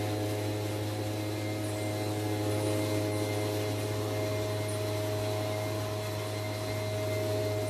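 A steady machine hum with several constant tones, unchanging throughout.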